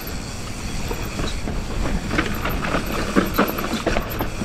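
Mountain bike rolling down a rough dirt trail: chain and frame rattling in irregular clatters that get busier about two seconds in, over a steady wind rumble on the microphone.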